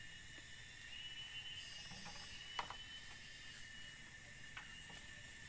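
Steady high-pitched buzzing of rainforest insects, with a few sharp knocks of bamboo as a person moves on a bamboo platform. The loudest knock comes about halfway through.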